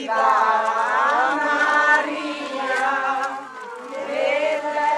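A crowd of people singing a hymn together in long, drawn-out notes.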